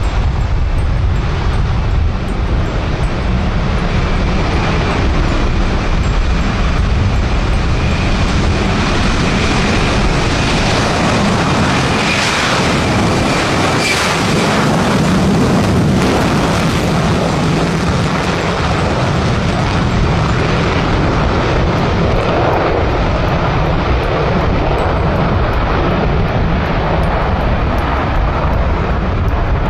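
B-1B Lancer bomber's jet engines running at takeoff power on the runway: a loud, steady jet noise with a faint high whine, strongest about halfway through as the aircraft passes.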